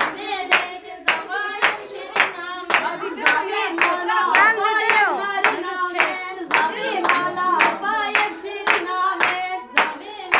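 Women singing a song together with steady rhythmic hand clapping, about two claps a second.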